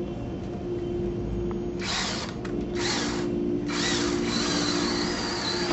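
Cordless drill driving a trim head screw through a shutter frame into the wall stud until it sits countersunk. It runs in three bursts: two short ones about two and three seconds in, then a longer run of about two seconds near the end.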